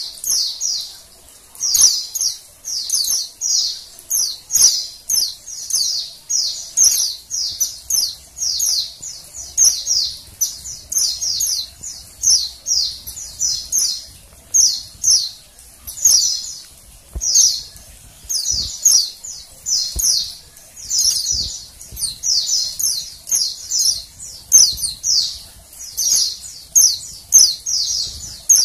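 Female white-eye (pleci) calling without pause: short, high-pitched chirping bursts, each a quick run of notes, repeated more than once a second. This is the female call keepers play to get male white-eyes singing.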